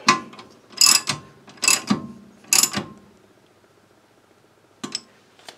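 Socket ratchet clicking in four short bursts while it snugs down the bolts of a brake dust shield, then two light clicks near the end.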